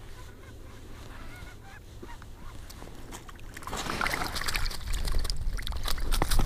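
Faint spinning-reel handling with a few small squeaks, then, from about four seconds in, loud crunching and scuffing in snow on the ice, with sharp clicks, as a white bass is pulled up and landed.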